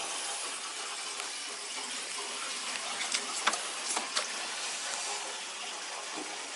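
Water rushing steadily out of a hydronic heating system as a zone is purged of old, acidic antifreeze. A few sharp clicks come near the middle.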